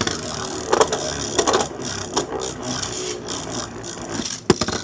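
A Beyblade spinning top with a rubber grip base is launched and spins in a plastic stadium, making a continuous rattling scrape. It knocks sharply against the stadium a few times, about a second in, around a second and a half, and again near the end.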